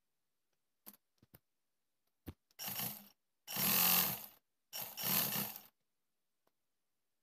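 Black domestic sewing machine, run at high speed, stitching in three short fast bursts about a second and a half to six seconds in, after a few light clicks.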